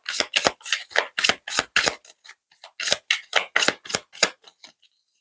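A deck of oracle cards being shuffled by hand: a quick run of crisp card snaps, about four or five a second, that thins out near the end.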